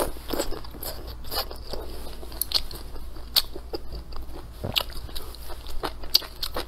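A person chewing stir-fried cured pork and velvet antler mushrooms close up: wet chewing broken by many irregular crisp crunches.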